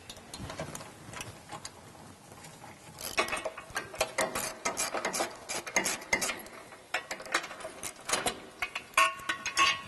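Hand socket ratchet clicking in quick, uneven runs as a crossmember bolt is backed out with an 18 mm socket, with brief metallic rings near the end.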